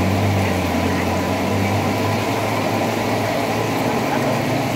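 A large wok of oil deep-frying batter-coated food over a gas burner: a steady sizzle and burner roar, with a low hum that fades about two seconds in.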